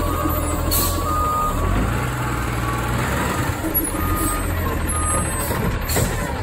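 CNG-powered Heil front-loader garbage truck running, its backup alarm giving intermittent high beeps as it moves, with a short air hiss about a second in.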